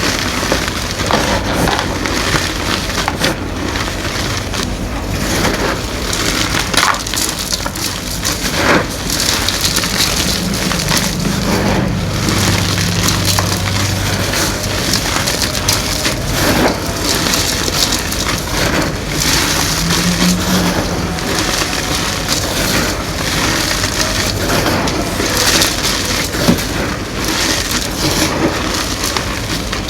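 Green gym chalk being crushed, crunching and crumbling in a continuous dense crackle of small clicks.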